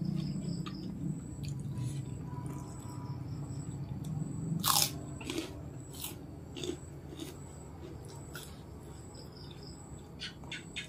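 Crunching and chewing of a crispy kerupuk cracker bitten off and eaten close to the microphone. Scattered sharp crunches come through, the loudest a little before halfway, over a low steady hum.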